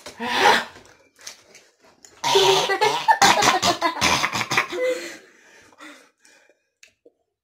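A boy coughs and splutters at the sourness of a lemon slice, then about two seconds in two boys break into loud laughter that lasts about three seconds and trails off into smaller breathy sounds.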